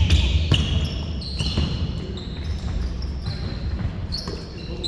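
Basketball game play in a gym: a ball bouncing on the court, with short high squeaks of sneakers on the floor throughout.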